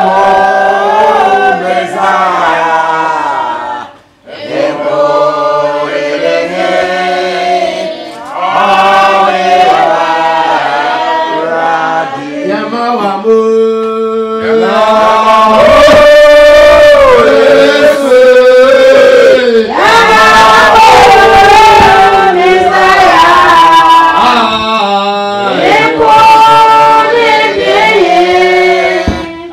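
Voices singing a worship song together at a church service, in long phrases of held notes, with a short break about four seconds in.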